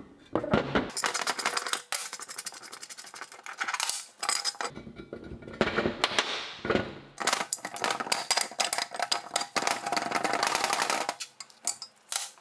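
Socket ratchet clicking in rapid runs as the bolt through the auger's pilot point is backed out, with metal clinks of tools and parts on a steel table. There are two long runs of clicking, with a short lull between them near the middle.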